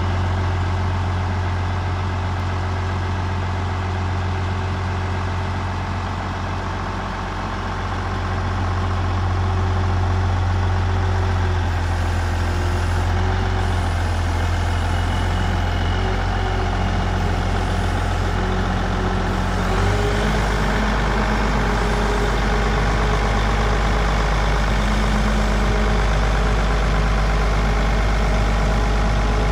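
Case IH 9370 four-wheel-drive tractor's Cummins N14 six-cylinder diesel running steadily. About two-thirds of the way through, its note changes and settles lower.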